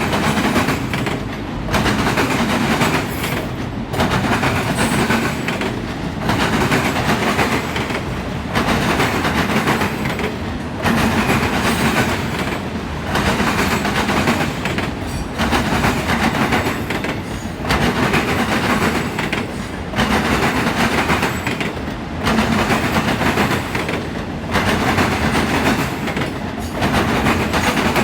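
Freight train of auto rack cars rolling past: loud, continuous wheel-on-rail clatter with a regular swell and dip about every two seconds.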